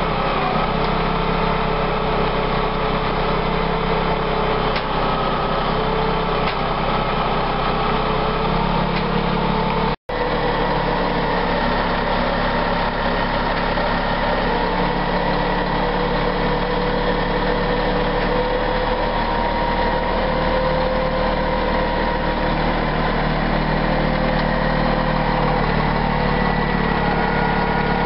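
Engine of an Atlas truck-mounted hydraulic crane running steadily while it lifts and swings a load of lumber, its pitch shifting slightly now and then. A short break about ten seconds in.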